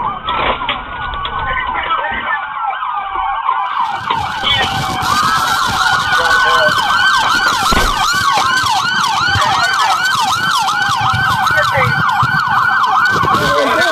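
Police vehicle sirens. They begin as a slow rising-and-falling wail, then from about four seconds in change to a fast, steady yelp that repeats several times a second.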